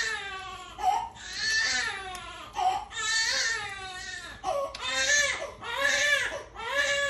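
A baby crying, a run of high-pitched wails that come again about once a second.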